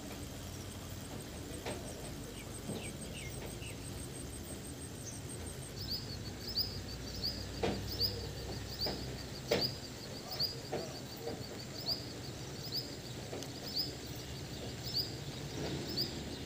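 Drill press running at a low steady hum while a twist drill bores a hole through a cast-iron oil expeller gala. From about six seconds in, a short high chirp repeats roughly twice a second over it, with a few faint clicks.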